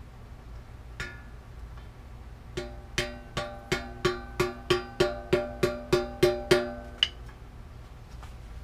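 Hammer striking metal on a bicycle frame, driving a press-fit part in without a press tool: a light tap about a second in, then a run of about a dozen ringing metallic blows at about three a second, and one last tap near the end.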